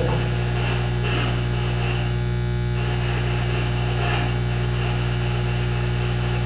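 Steady low electrical mains hum with a buzzy edge, unchanging throughout, over faint room noise.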